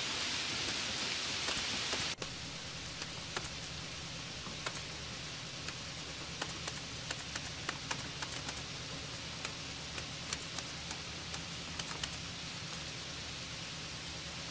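Steady hiss with many small scattered clicks and ticks as the cardboard box insert, plastic charger and cable are handled. The hiss drops a little about two seconds in.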